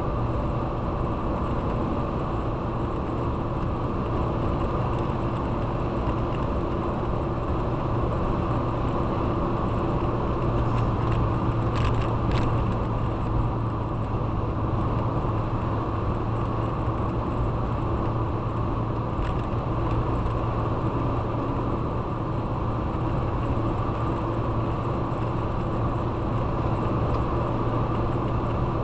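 Steady engine and road noise of a vehicle driving along, with a constant low hum, and a couple of brief clicks about twelve seconds in and another near twenty seconds.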